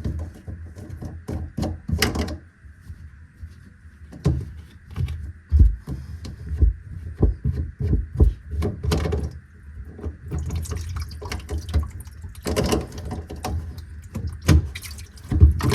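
Sink drain pipes being worked loose and handled, with irregular knocks and clunks and water dripping and splashing out of the opened drain.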